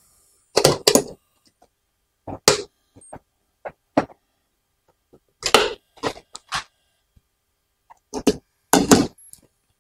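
Hard plastic parts knocking and clattering against each other and the table as they are handled and small screws are taken out, in several short bursts of sharp taps with quiet gaps between.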